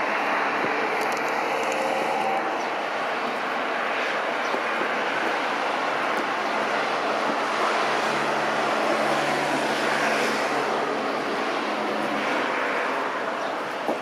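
A landing Boeing 737-800's CFM56 jet engines giving a steady rushing jet noise that swells slightly a little past halfway.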